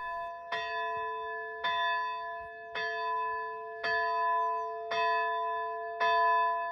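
A single church bell chiming, freshly rehung on new fittings and being tested: six strokes about once a second, all on the same note, each ringing on until the next.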